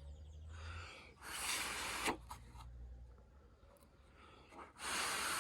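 A person breathing out heavily close to the microphone, two breathy hissing breaths about a second long, one just over a second in and one near the end.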